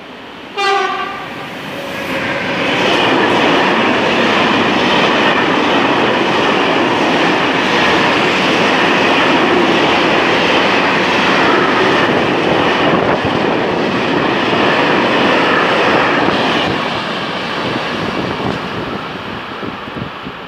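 Freight train horn sounding one short blast about a second in, then a freight train of open box wagons passing close at speed. The wheels and wagons make loud, steady running noise that fades over the last few seconds.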